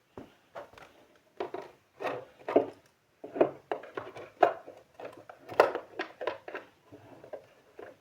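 Small objects being picked up, shuffled and set down on a dressing table while it is tidied: an irregular run of short knocks and rattles.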